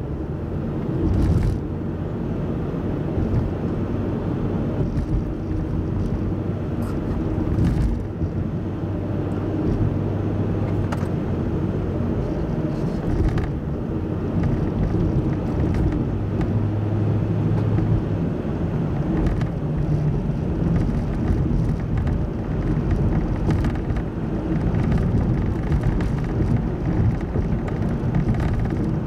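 A car driving at a steady cruise, heard from the vehicle: an even engine hum under constant road and tyre rumble.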